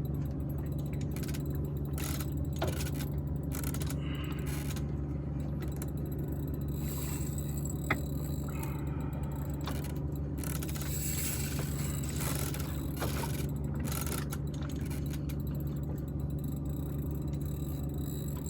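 Small fishing boat's outboard motor idling steadily as a low drone, with scattered short clicks and scrapes from the rod and reel while a hooked fish is played.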